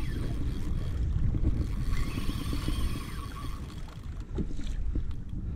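Wind rumbling on the microphone and water sloshing against a fishing kayak's hull, with a couple of light knocks about four and a half seconds in.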